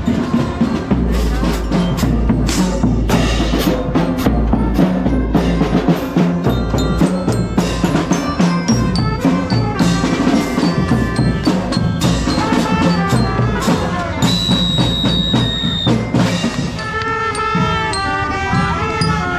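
Percussion-driven music with dense drum strokes and a pitched mallet-type instrument. About two-thirds through, a high note is held for about two seconds. A wavering melody comes in over the drums near the end.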